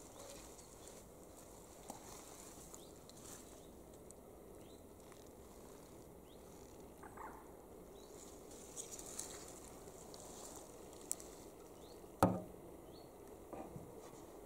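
Quiet outdoor ambience with faint rustling and a few light clicks, broken by one sharp knock about twelve seconds in.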